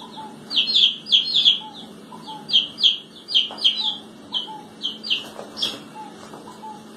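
Chicks peeping: a quick run of short, high, falling cheeps, about two or three a second.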